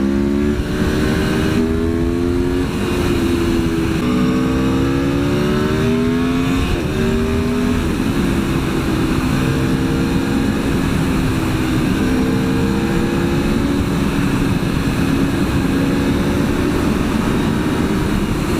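Aprilia Tuono V4 1100's V4 engine accelerating hard, its pitch climbing and dropping back at three or four upshifts in the first eight seconds, then running at a fairly steady speed with small throttle changes. Heavy wind rush on the microphone.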